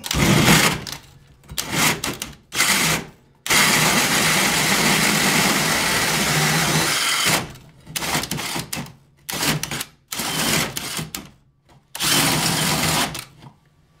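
DeWalt cordless drill driving a 4.5-inch hole saw through the wooden subfloor. It runs in several short bursts and one steady stretch of about four seconds, with the teeth biting into the wood.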